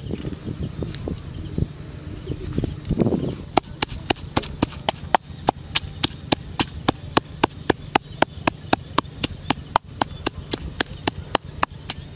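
Pestle pounding red chilies in a mortar: sharp, steady strikes at about four a second, starting a few seconds in.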